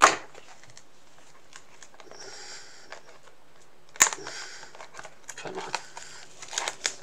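Hands handling a cardboard card-game box and its packaging on a wooden tabletop: a sharp knock at the start and another about four seconds in, with soft rustling and light taps between.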